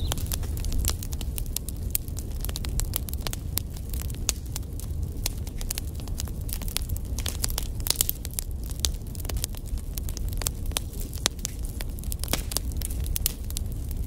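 Wood fire burning in a fireplace: logs crackling with many sharp, irregular pops and snaps over a steady low rumble of the flames.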